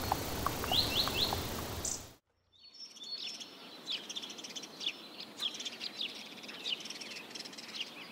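Outdoor birdsong ambience of repeated short chirps over a soft background hiss. It drops out briefly about two seconds in, then returns more quietly with many quick, falling chirps.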